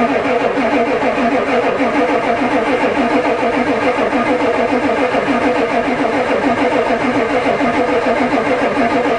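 Ford diesel truck engine being cranked over by its starter motor in a long, steady, rhythmic churn, without catching. This is a cold crank, which the owner suspects has no glow plug heat because the new controller never clicks.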